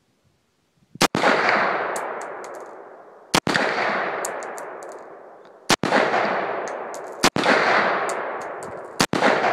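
Elite Arms AR-15 rifle in 5.56 firing five single shots about one and a half to two and a half seconds apart, each followed by a long echoing fade and a few short faint clicks.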